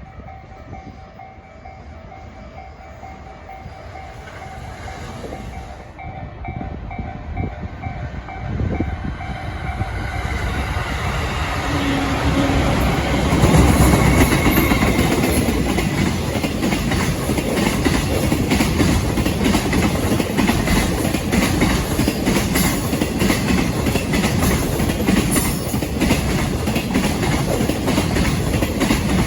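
A freight train approaches and runs past close by, growing louder over the first dozen seconds. The long string of wagons keeps up a loud steady rumble with rapid clicking of wheels over the rail joints.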